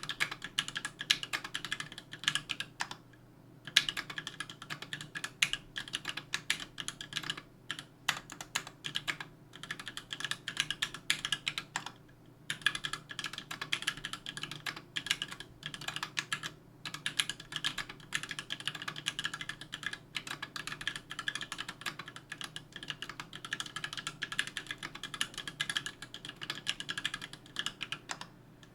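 Typing on a KBDfans Tofu 60% aluminium mechanical keyboard with JWK H1 78g linear switches, GMK Jamon keycaps and lubed, clipped screw-in stabilizers: rapid, continuous keystrokes with a few short pauses.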